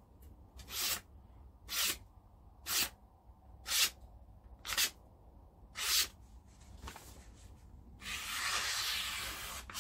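Handmade knife blade slicing through a sheet of paper in one continuous hissing cut lasting under two seconds near the end. Before it come six short swishing strokes, about one a second.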